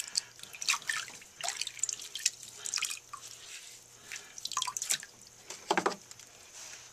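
Wet hands and a wet sponge working the clay of a spinning stoneware cup on a potter's wheel: irregular wet squelches, drips and splashes over a faint steady hum.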